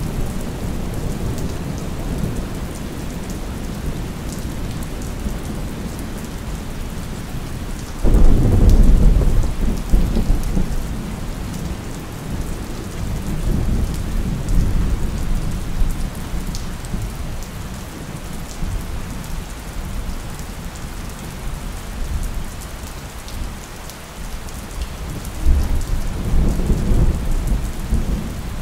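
Steady rain with thunder: a sudden loud thunderclap about eight seconds in that rumbles away over several seconds, and another lower rumble near the end.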